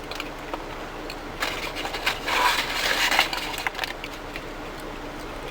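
Paper wrapper crinkling and rustling as it is handled, loudest in the middle.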